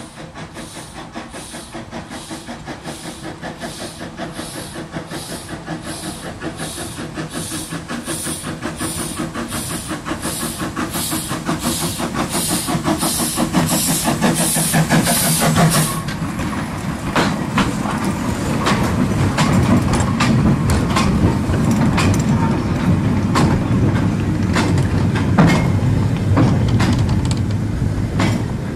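Steam locomotive GWR 1340 "Trojan", an 1897 Avonside 0-4-0 saddle tank, approaching under steam with regular exhaust beats, about two a second, growing louder. The beats stop suddenly about halfway through. The wagons and brake van then roll past, rumbling, with clicks and clanks over the rail joints.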